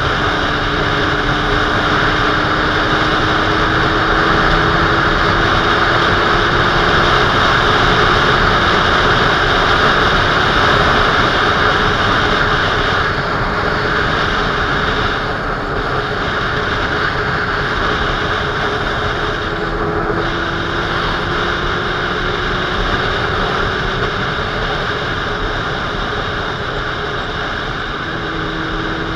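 Motorcycle under way, heard from the bike itself: loud wind rush over the camera microphone with the engine note underneath. The engine note climbs slowly as the bike accelerates over the first several seconds, drops back as the rider eases off about halfway, and rises again about two-thirds in.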